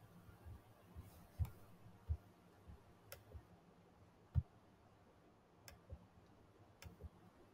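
Faint, irregular clicks and soft thumps, about ten in all, the loudest a thump a little past halfway, over quiet room tone.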